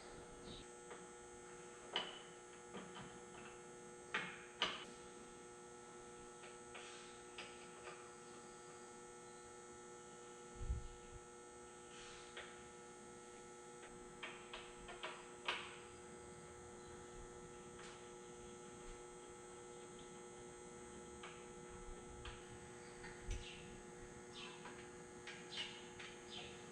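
Faint steady electrical hum with scattered light clicks and knocks, a dozen or so, from parts and tools being handled during the soundbar mounting; one knock about ten seconds in has a low thud.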